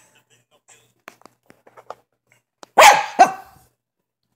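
Dog barking twice in quick succession about three seconds in, after a few faint ticks.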